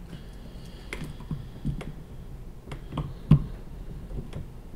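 Small irregular clicks and taps of a Librem 5 phone being handled as its SIM card is pushed back into its slot, with one louder click a little over three seconds in.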